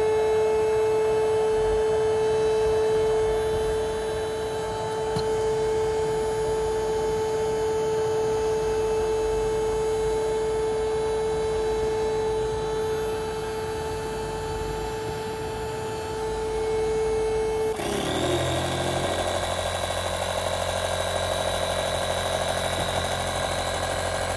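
Electric air pump running steadily with a steady whine while inflating an inflatable boat. About 18 seconds in, its note changes abruptly to a lower, rougher steady run with a faint high whine over it.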